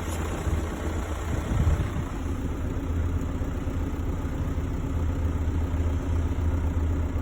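SEAT Alhambra 2.0 TDI four-cylinder diesel engine idling steadily, with a brief rise in level about a second and a half in. It carries an engine noise whose cause the owner cannot place.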